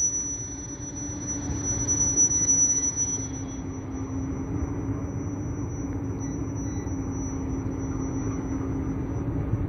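Diesel locomotive slowly hauling a train of coaches: a steady engine drone with the rumble of the wheels and cars on the track, and a thin steady high whine over it.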